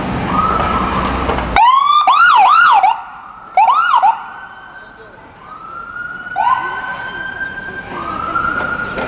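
Ambulance electronic siren passing close by. It starts on a slow rising wail, then about a second and a half in switches to a loud, rapid yelp that sweeps up and down about three times a second, breaks off, and yelps again briefly. After that it goes back to repeated slow rising wails.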